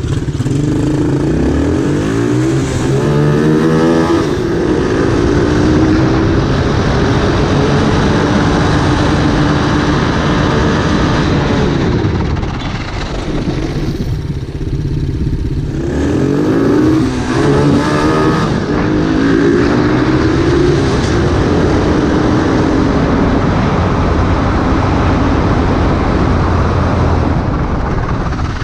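A 125 cc ATV's single-cylinder engine heard from the machine itself at close range. The revs climb hard twice, near the start and again just past halfway, and ease off briefly in between.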